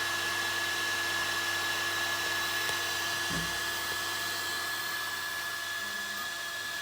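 Steady whirring fan noise with a constant high whine and a lower steady hum, typical of a Bambu Lab 3D printer's cooling fans running. There is a faint low knock about three seconds in.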